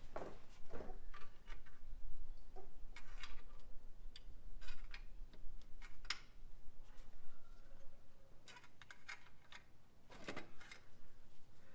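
Scattered, irregular clicks, taps and short scrapes of hand tools and parts being handled during the teardown of a truck engine.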